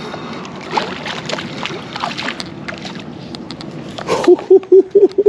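Water splashing and sloshing as a hooked sheepshead is reeled up to the surface. About four seconds in comes a quick run of about six loud, evenly spaced pitched pulses.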